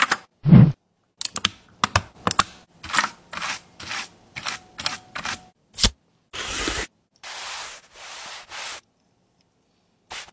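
Keyboard cleaning kit in use: the brush and pen tool clicking and tapping against plastic keyboard keys in a quick run of short clicks, then several short brushing strokes about six seconds in.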